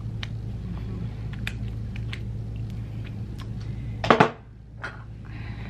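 Scattered light taps over a steady low hum, with one loud bump about four seconds in.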